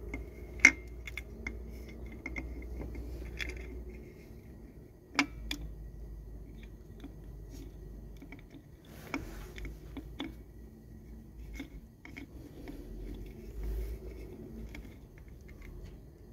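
Scattered light metal clicks and clinks of small parts and tools being handled, with a sharp click about half a second in and another about five seconds in, over a low steady hum.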